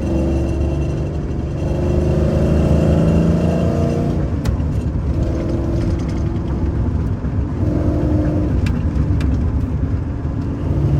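Pickup truck engine, a GMC Sierra with a swapped-in TR6060 six-speed manual, pulling with rising revs a second or two in, then running at steadier revs over road noise while driving.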